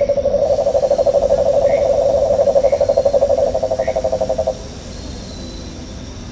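A small animal's long, loud pulsed trill, about ten pulses a second, from the jungle ambience soundtrack; it cuts off suddenly about four and a half seconds in. A few faint short chirps sound above it.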